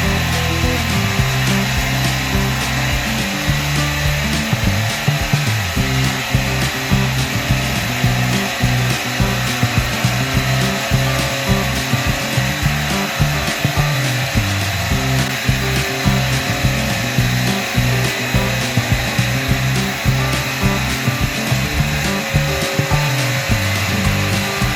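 A power tool working wood, over background music.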